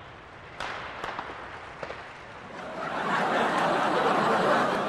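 Fireworks sound effect: a few sharp cracks, then a dense rush of noise that swells about three seconds in and fades near the end.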